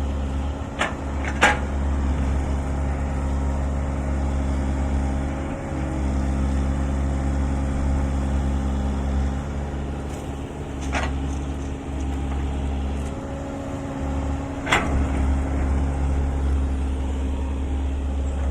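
Diesel engine of a dump truck running steadily, with four sharp knocks, two about a second in, one midway and one near the end.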